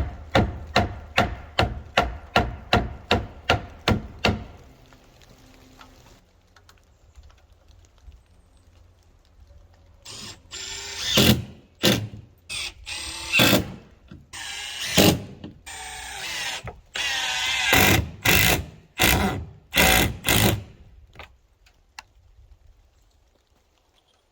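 A run of even, ringing strikes, about three a second for some four seconds, then a power drill running in short bursts and one longer run, as when driving screws into plywood.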